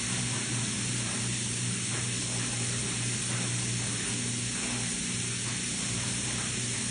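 Steady hiss over a low hum, unchanging.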